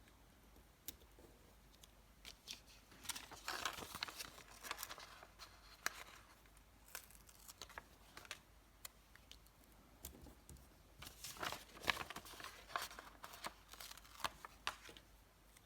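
Stickers being peeled from their backing sheet and pressed down: crinkly peeling and rustling of paper and plastic, in two busier bursts about three seconds in and about eleven seconds in, with scattered small clicks between.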